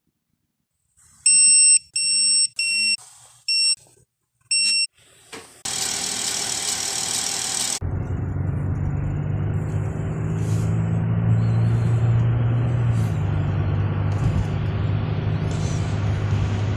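Five short electronic chime beeps from the Buick Enclave, then the starter cranks for about two seconds. The 3.6-litre V6 then catches and idles steadily with a deep low drone, running with the misfire the owner is showing.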